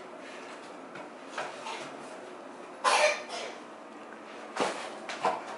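Paper and plastic craft pieces being handled on a tabletop, making small rustles and clatters. A louder short burst comes about three seconds in, and a couple of knocks near the end.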